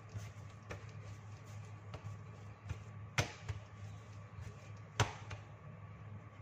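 Pandesal dough being kneaded by hand on a granite countertop: irregular soft thuds and slaps as it is pressed and pushed down, with two sharper slaps about three and five seconds in, over a steady low hum.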